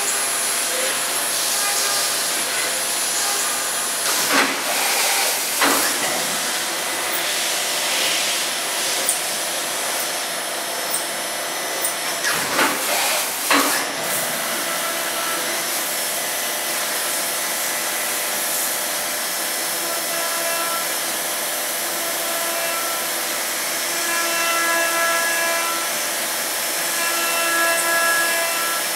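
Brother TC-S2DN-O CNC machining centre milling aluminium under flood coolant: a steady hiss of coolant spray and cutting, with faint steady high tones from the spindle. It counterbores with an 8 mm carbide endmill, then chamfers with a 10 mm chamfering drill at 10,000 rpm. A few short louder surges come about four to six seconds in and again about twelve to fourteen seconds in.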